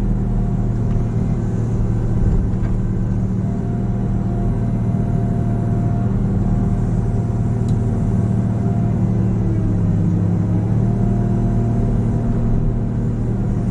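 Caterpillar 315 CL excavator's diesel engine running steadily under load while digging, with a thin whine that comes and goes and dips in pitch as the hydraulics work the boom and bucket.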